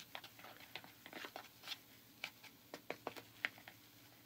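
A plastic scoop stirring a foaming powdered drink-like mix in a small plastic bowl: faint, irregular clicks and scrapes, a few each second.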